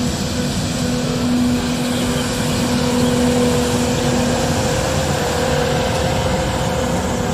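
Street sweeper truck running while sweeping: a loud, steady noise from its engine and sweeping gear with a steady low hum through it.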